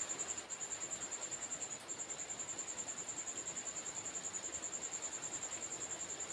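Insect trilling, cricket-like: a high, steady pulsing chirp of about ten pulses a second, broken briefly twice in the first two seconds.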